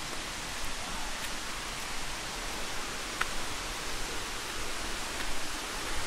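Steady, even rush of water from a waterfall close by.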